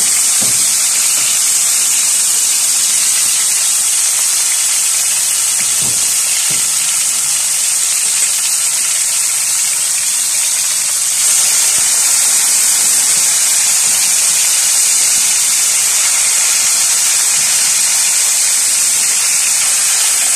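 Chicken breast pieces frying in hot oil in a frying pan, a loud, steady sizzle that grows a little louder about eleven seconds in.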